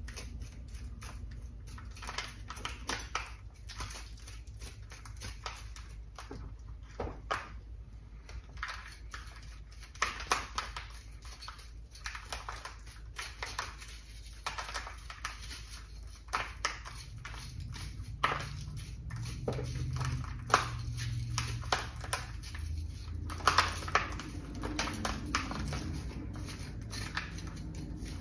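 A small metal root hook raking through the root ball of a ficus ginseng, scratching and crunching through gritty potting soil mixed with lava rock as it loosens it from the roots, in irregular clusters of scrapes and crackles.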